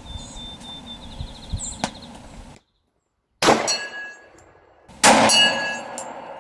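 Two loud shots from a Glock 27 .40 S&W compact pistol, about a second and a half apart, each trailed by a metallic ringing, as of steel targets being hit. A fainter crack comes about two seconds in.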